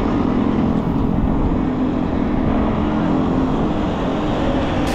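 Steady drone of motor traffic, with engines running in a low hum.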